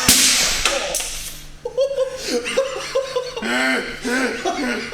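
A loud rushing burst of noise for about half a second at the start, then several people laughing in short bursts.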